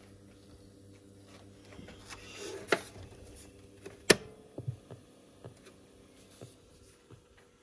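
Steady low electrical hum from a Philips cassette boombox, broken by a short rustle and two sharp clicks about three and four seconds in, then a few lighter taps.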